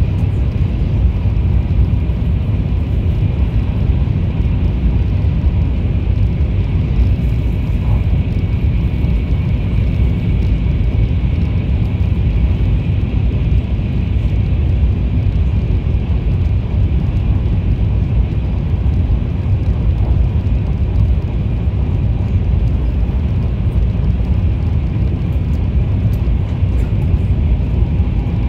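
Taiwan High Speed Rail train running at speed, heard from inside the passenger car: a steady low rumble with a faint hiss over it.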